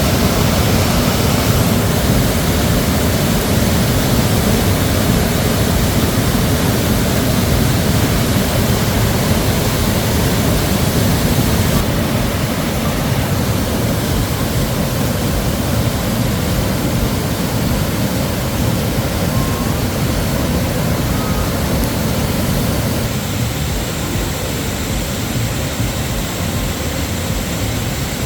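A river rushing steadily over its bed: a loud, even noise that never breaks, heaviest in the low end.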